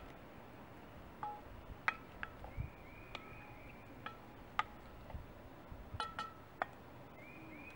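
Spatula clinking and scraping against a cast-iron Dutch oven while chorizo is stirred: about a dozen sharp, irregular clinks, some ringing briefly.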